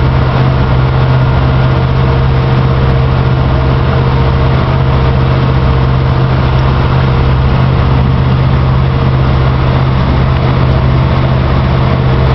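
An engine running steadily at constant speed, loud and close, with a strong low hum that does not change.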